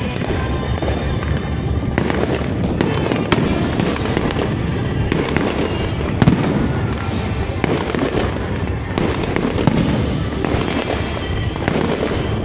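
Aerial fireworks shells going off in quick succession: a dense, continuous din with many sharp bangs, the loudest about halfway through.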